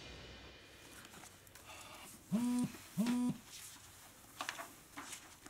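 A mobile phone vibrating: two short, even buzzes a moment apart, the pattern of an incoming message or call. Faint paper rustles and light taps follow near the end.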